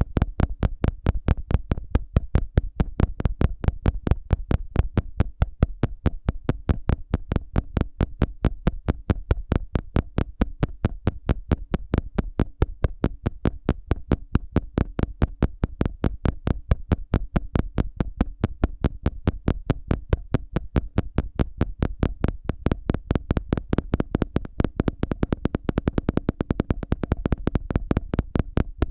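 Ear pick scratching close to the microphone in rapid, even strokes, about five a second without a break, over a faint steady hum.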